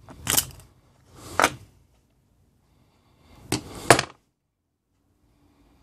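Plastic housing of a car charger snapping and clicking as it is pried apart with a screwdriver, freeing the circuit board. There are four short, sharp snaps, the last two close together.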